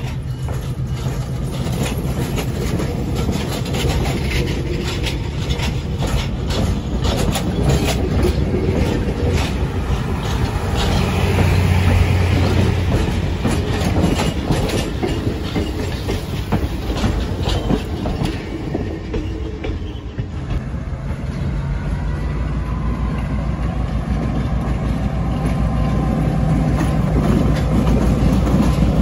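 Passenger railroad cars rolling past close by, their steel wheels clicking over the rail joints over a continuous low rumble. About two-thirds of the way through, the sound changes to a steadier rumble with fewer clicks.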